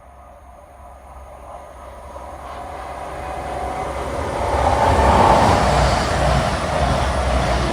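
Class 221 Voyager diesel-electric multiple unit approaching and passing at speed on the main line: a growing rumble and rush of wheels and engines that builds over about five seconds and stays loud as the train goes by.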